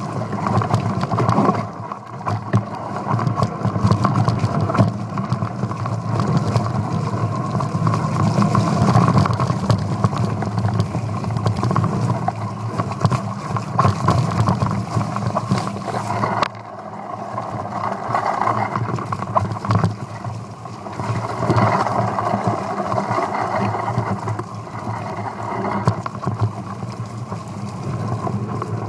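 Mountain bike descending a rough dirt trail: a steady rumble with many small knocks and rattles as the bike bumps over the ground, and wind on the microphone. The noise drops briefly about two-thirds of the way in.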